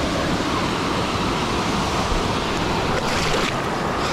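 Steady rush of water from a small weir cascading into a river pool, heard from a camera at the water's surface, with water sloshing close by and a brief louder rush about three seconds in.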